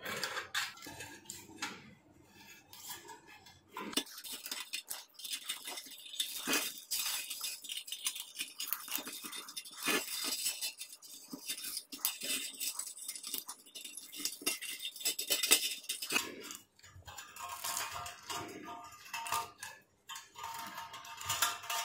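Irregular light metallic clinks, scrapes and rattles of a coiled heating-element wire being handled and pressed into the grooves of a ceramic heater plate.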